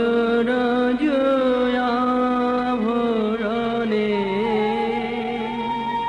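A man singing a Bengali devotional song in long, wavering held notes, with musical accompaniment.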